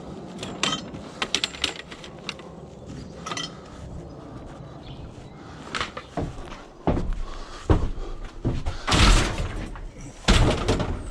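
Scrap metal being handled and loaded: scattered metallic knocks and clatters, then two heavier crashing thuds near the end.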